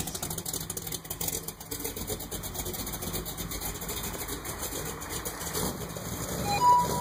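A pickup truck's engine idling steadily with an even low rumble, the stereo silent. A short, higher-pitched tone sounds briefly near the end.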